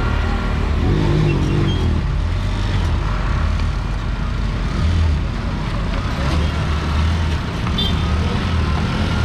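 Steady low engine rumble with traffic noise, as vehicles and the ferry's engine run on a river car ferry. A brief voice sounds early on and a short high chirp comes near the end.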